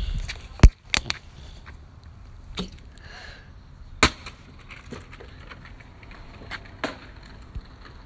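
An empty plastic water bottle being kicked and knocking about on concrete and brick: a sharp, very loud hit under a second in, then a few lighter clacks, one of them louder about four seconds in.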